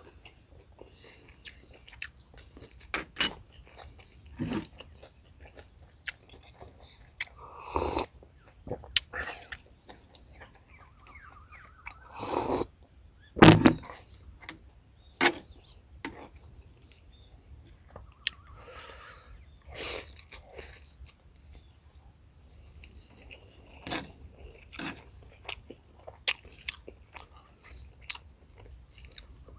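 Scattered clicks and knocks of someone eating, utensils against a plate or bowl, with the largest knock about halfway through. A steady high insect chirring runs underneath.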